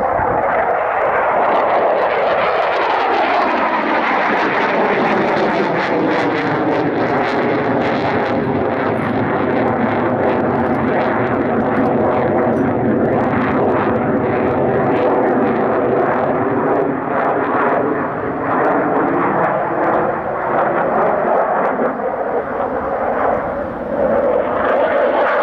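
SAAB JAS 39C Gripen fighter's single Volvo RM12 turbofan running at high power through display manoeuvres: a loud, continuous jet roar whose tone sweeps slowly down and back up as the jet moves across the sky.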